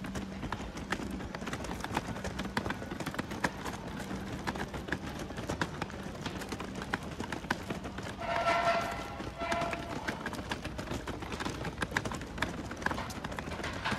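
Footsteps on pavement, a quick, steady run of light clicking steps, with a brief high-pitched call heard twice a little past the middle.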